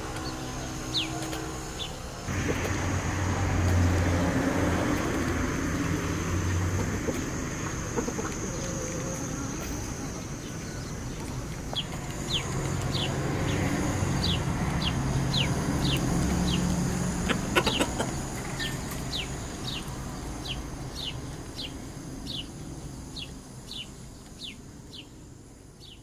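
A rooster clucking, with a small bird's short falling chirps repeating about twice a second in the second half. The sound fades out near the end.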